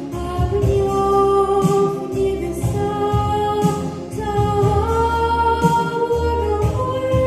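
A woman singing a song in long held notes that step upward in pitch, over an instrumental accompaniment with low bass notes.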